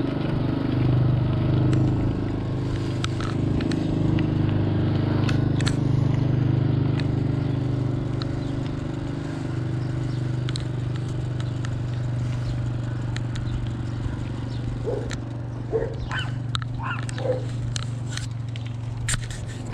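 A bicycle rolling along a paved street: a steady low hum of the ride with scattered clicks and rattles, and a few short chirp-like sounds in the last few seconds.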